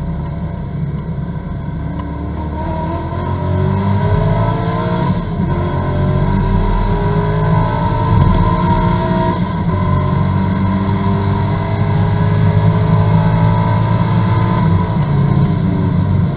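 Corvette GT2 race car's V8 engine heard from inside the cockpit, accelerating hard out of a corner, its pitch rising through the gears with an upshift about five seconds in.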